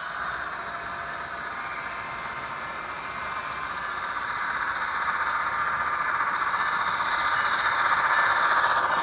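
HO scale model passenger train running along the track toward the listener, its wheels and motor making a steady rattling hum that grows louder as it approaches.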